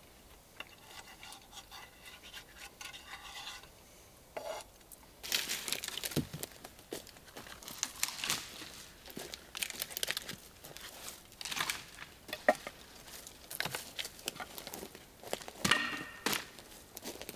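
Irregular crunching and snapping of dry twigs and forest litter under footsteps, starting about five seconds in. Before that, a faint scraping of a fork in a metal frying pan.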